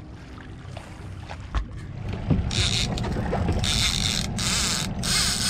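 Low wind rumble on the microphone aboard a drifting boat, then from about halfway a series of loud, high hissing bursts with short breaks between them.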